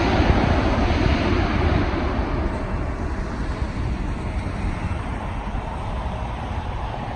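Jet engine noise from a Boeing 777-300ER's GE90 engines on its landing rollout. It fades over the first few seconds and then holds at a steady, lower rush.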